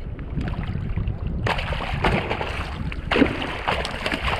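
Gaffed yellowfin tuna thrashing and splashing at the side of a kayak, over a steady rumble of wind on the microphone. The splashing starts about a second and a half in, with one loud splash a little after three seconds.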